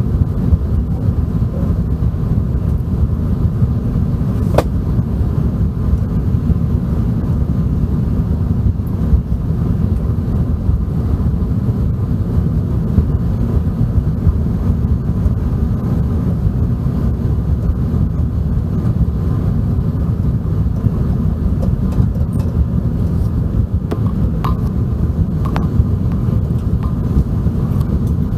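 Steady low roar inside the cabin of an Airbus A380 in flight: engine and airflow noise, even throughout. A single sharp click about four and a half seconds in, and a few faint ticks near the end.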